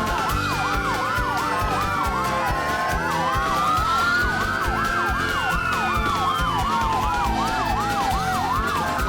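Several emergency-vehicle sirens sounding at once, slow rising and falling wails overlapping with fast repeating yelps, with music underneath.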